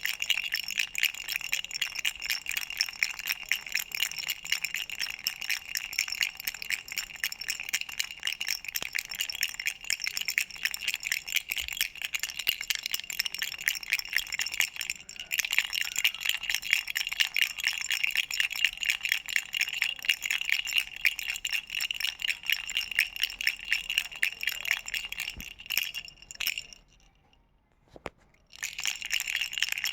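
Duck-shaped baby rattle toy being shaken continuously: a fast jingling rattle with a high, bell-like ring. It stops for about two seconds near the end, then starts again.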